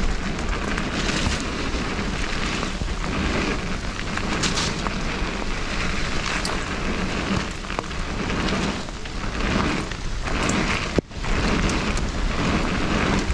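Mountain bike riding fast down a wet dirt trail, heard from a rider-mounted action camera: a steady rush of wind on the microphone, mixed with tyres crunching and spraying over wet dirt and the bike rattling over bumps. The noise dips sharply for a moment about eleven seconds in.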